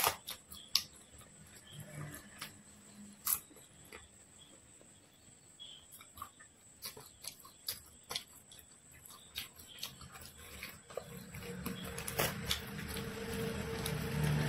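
Close-miked eating sounds: a poori torn apart by hand, then fingers squishing poori into curry gravy, with wet chewing and lip smacks as scattered clicks and squelches. The sounds grow denser and louder near the end, where a low steady hum also comes in.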